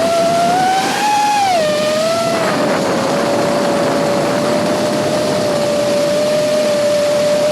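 FPV racing quadcopter's electric motors and propellers whining. The pitch rises about a second in, drops sharply as the throttle comes off, then holds steady over a rushing hiss of propeller wash.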